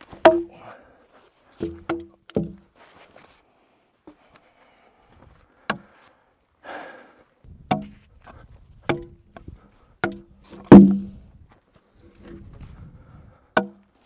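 Pickaroon striking into softwood logs and logs knocking as they are handled: about ten sharp wooden knocks, each with a short hollow ring. The loudest comes a little before the 11-second mark.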